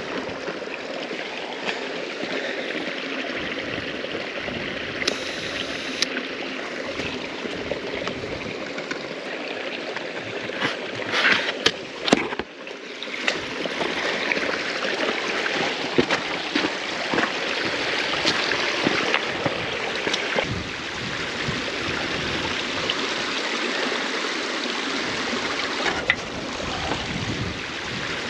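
Small mountain stream running and trickling over stones, a steady rush of water. A short cluster of clicks and knocks comes about halfway through.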